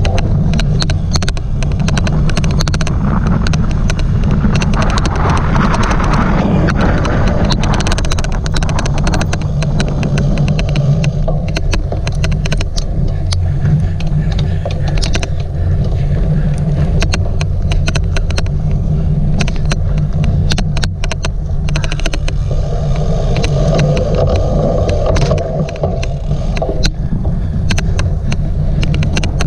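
Cyclocross bike ridden over rough ground: a loud, steady low rumble, with many irregular sharp clicks scattered through it.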